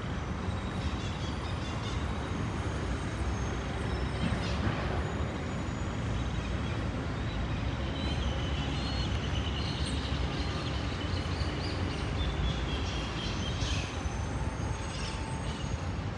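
Steady city traffic rumble, with faint thin high-pitched sounds from about halfway through.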